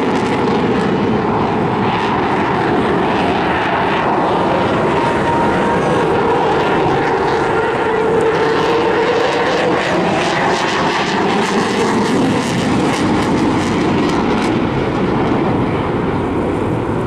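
RAF Eurofighter Typhoon FGR4's twin jet engines running in flight, a loud, steady jet noise with a fine crackle through it.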